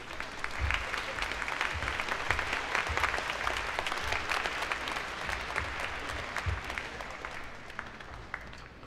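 Large concert audience applauding, a dense clatter of clapping that swells about half a second in and thins out near the end.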